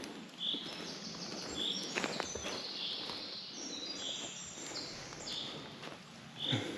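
Woodland ambience: a bird repeats a short high call about once a second, with a few footsteps crackling on the forest floor.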